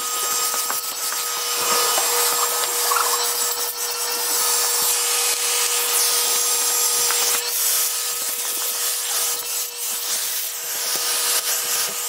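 Vacuum cleaner running with a steady whine, its bare hose end sucking up loose hay and dragged over the plastic floor of a guinea pig cage.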